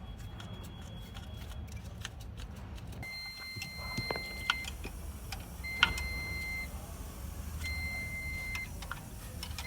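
An electronic beeper sounds steady beeps of about a second each, starting about three seconds in and repeating roughly every two seconds. Sharp metallic clicks of tools are heard over a low steady rumble.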